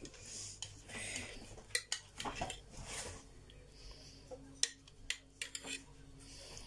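Metal spoon clinking and scraping against a plastic mixing bowl as sour cream is spooned into batter: a scatter of light, irregular clicks.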